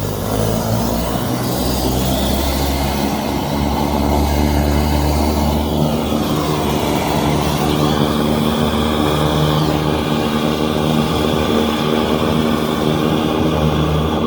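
Hydro jetter running: a steady engine drone with a hiss of high-pressure water, jetting out a clogged sump pump discharge line.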